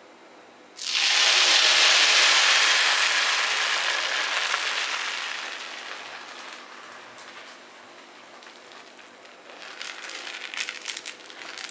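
Beetroot dosa batter sizzling as it is poured onto a hot dosa griddle. The loud hiss starts suddenly about a second in and fades slowly over several seconds, then a crackling sizzle returns near the end as the ladle spreads the batter.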